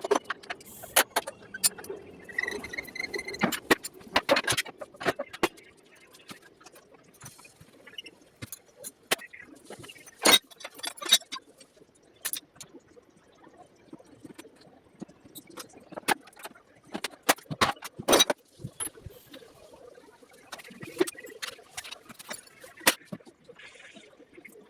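Metal hand tools and small metal parts clinking, tapping and clanking at irregular intervals, the sound of an electric scooter being taken apart by hand.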